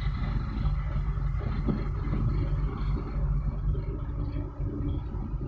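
Diesel engines of boats entering a harbour, running with a low, steady drone.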